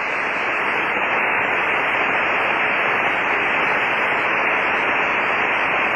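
Steady static hiss of band noise from a Kenwood HF transceiver receiving on the 20-metre band with no station transmitting, the empty channel between overs. The hiss is cut off sharply above the speech range by the receiver's single-sideband filter.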